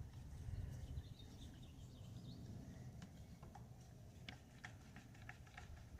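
Quiet scatter of faint, short clicks and taps over a low rumble that fades about a second in.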